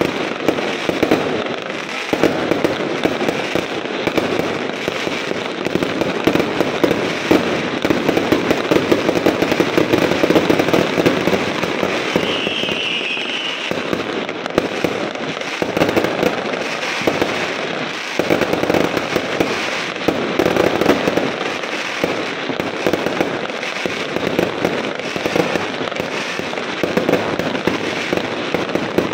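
A dense, unbroken barrage of aerial fireworks: rapid crackling and popping bursts overlapping one another without a pause.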